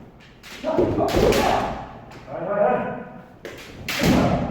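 Kendo sparring: sharp clacks of bamboo shinai strikes and stamping footwork, mixed with kiai shouts, including a long drawn-out shout about halfway through and a loud burst of strikes and stamps near the end.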